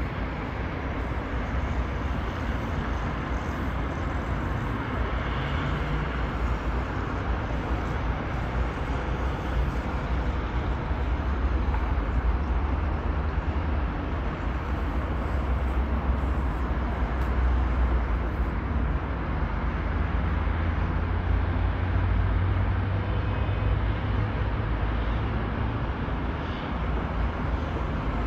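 Steady rumble of dense multi-lane highway traffic heard from a distance, cars and lorries moving slowly in a jam. A deep low rumble swells louder through the middle and eases again near the end.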